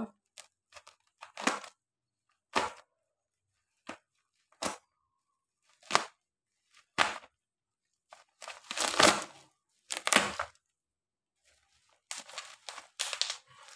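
Cutter knife slitting through the taped plastic and bubble-wrap packaging of a parcel: a string of short rips about a second apart, then longer tearing of the plastic near the end as the wrap is pulled open.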